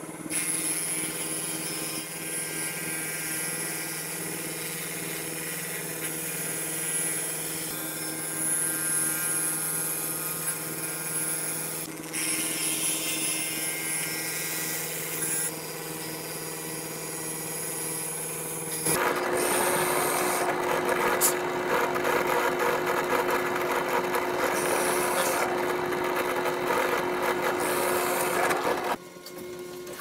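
Table-mounted router running steadily while cutting speaker-grille slots in a walnut board, a steady motor hum with cutting noise. About two-thirds in, a louder, rougher-sounding power tool takes over, then stops shortly before the end.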